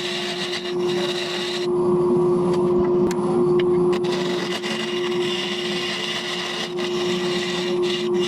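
Wood lathe running with a steady hum while a turning tool cuts a segmented wooden post, giving a continuous scraping cut. The higher cutting noise drops out for a couple of seconds about two seconds in, then returns.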